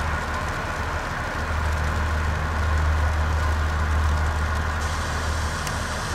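Low, steady rumble of a departing passenger train hauled by a diesel locomotive as it pulls away slowly. A thin hiss joins about five seconds in.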